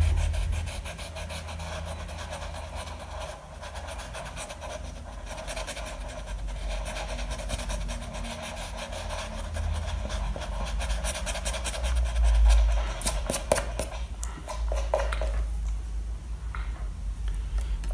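Rubber eraser scrubbing pencil lines off drawing paper in quick back-and-forth strokes over a steady low rumble. The rubbing stops a few seconds before the end.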